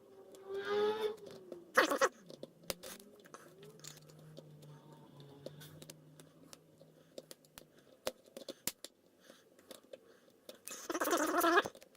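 Light metallic clicks and scrapes of lock picks working the pins of a cylinder lock, irregular and sparse, with a short murmur of a voice near the start and again near the end.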